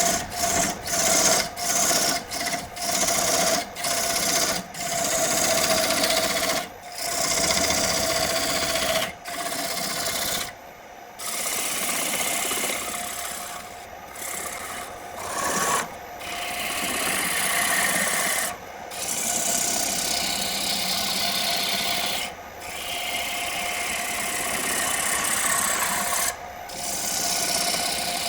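Abrasive rubbing on wood: short rhythmic strokes about two a second for the first few seconds, then longer continuous passes with brief breaks, over a steady hum.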